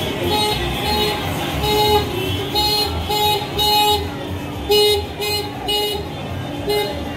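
Car horns tooting in short beeps, about a dozen and often in pairs, over music with a steady beat and the run of passing car engines.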